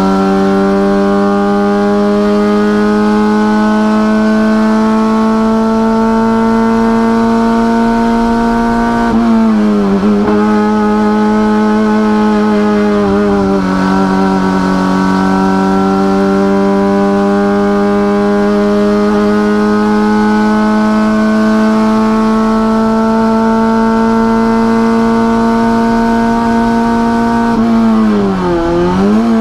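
Volkswagen Gol race car's four-cylinder engine heard from inside the cockpit, held at high revs under full throttle with its pitch slowly climbing. The note dips briefly twice, about nine and thirteen seconds in, and drops and climbs again near the end.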